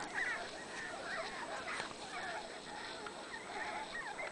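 High-pitched animal squeaks and chirps, many short calls rising and falling in quick, overlapping succession.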